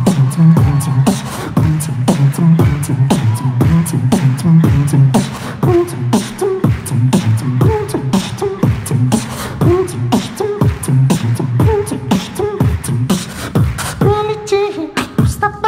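A beatboxer's voice into a handheld microphone: a fast, steady beat of mouth-made kick, snare and hi-hat clicks over a low buzzing vocal bass, made with no effects on the microphone. From about six seconds, falling pitched vocal glides join the beat, and a held, sung tone comes in near the end.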